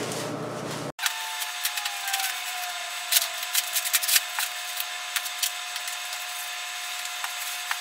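Bubble wrap crinkling and crackling as it is handled and pulled open, in many small sharp crackles. From about a second in, a thin steady tone sits underneath.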